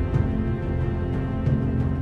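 Tense background film score: held tones over a steady low bass.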